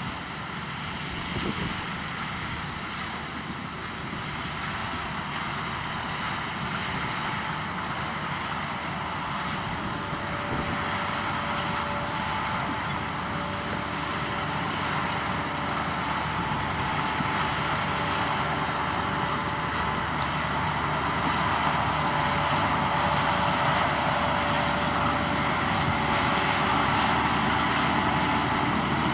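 Heavy potato-harvesting machinery running steadily, with a few held whining tones over a dense rumble, slowly getting louder.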